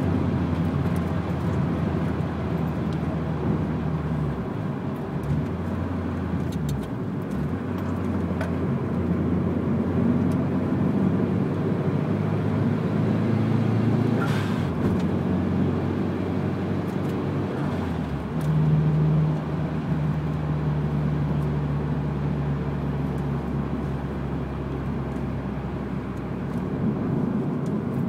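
Mitsubishi Lancer Evolution's turbocharged four-cylinder engine heard from inside the cabin while lapping a circuit, mixed with tyre and road noise. The engine note dips briefly a few times, as on a lift or gear change, then runs stronger and steadier in the later part.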